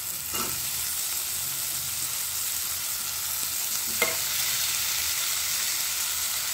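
Onion-tomato masala sizzling steadily in hot oil in a kadhai, with a steel spoon knocking against the pan, loudest about four seconds in as chopped raw potatoes are tipped in from a plate. The sound cuts off suddenly at the end.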